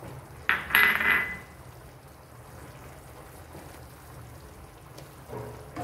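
Green-banana gravy simmering in a pan on a gas stove, with a short loud hissing splash of liquid about half a second in that lasts about a second.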